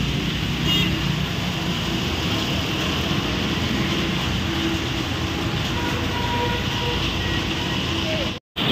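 Street traffic on a flooded road: motorbike and auto-rickshaw engines and tyres swishing through standing water, over a steady hiss. The sound cuts out for a moment near the end.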